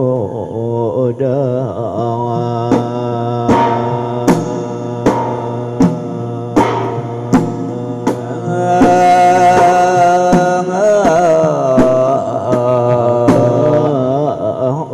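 Traditional sung chanting: a voice holding long, wavering, ornamented notes over sharp drum strokes that fall about every three-quarters of a second.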